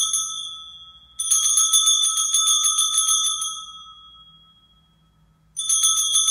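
Altar bells (a cluster of small Sanctus bells) shaken in quick jingling rings at the elevation of the chalice. One ring is dying away at the start, another comes about a second in, and a third near the end; each rings briefly and fades.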